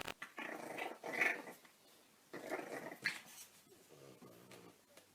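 Puppy growling in several short spells, ending in a lower, longer growl.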